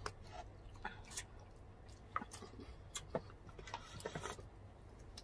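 Faint chewing and lip-smacking of people eating soft, fatty yellowtail (buri) fish head with rice: irregular wet clicks and squishes, a few each second.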